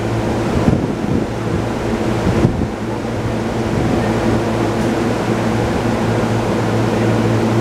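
E231-series commuter train standing at the platform, its on-board equipment giving a steady low hum of a few fixed tones, under an even rushing noise.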